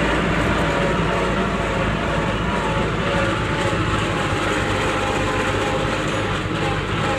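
Compact tractor's diesel engine running steadily as the tractor drives across a field, heard from the driver's seat.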